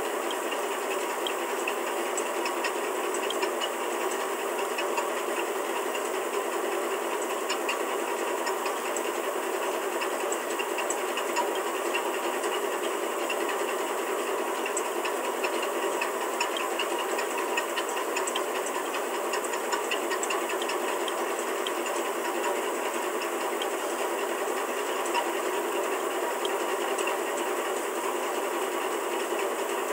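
Steady hiss-like background noise with faint, scattered small clicks.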